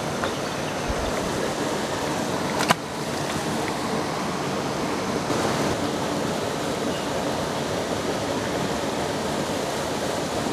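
Steady, even rush of water pouring over a river spillway, with one sharp click about three seconds in.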